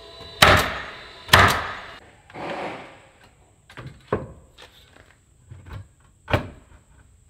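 DeWalt cordless roofing coil nailer firing two nails into stone-veneer siding panels about a second apart, each a loud bang that trails off briefly. Then lighter clicks, scrapes and knocks as stone panels are handled and set against the wall, with one sharp knock near the end.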